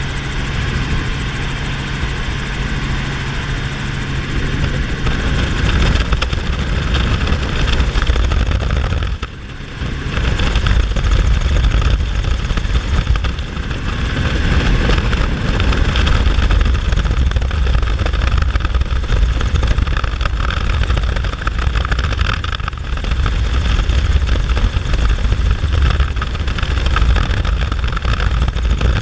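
Helicopter in flight, heard from inside the cabin: a loud, steady drone of rotor and engine noise, heavy in the low end. It dips briefly about nine seconds in.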